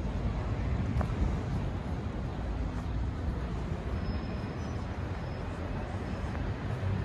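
City street ambience: a steady low rumble of distant traffic and air, with a short click about a second in.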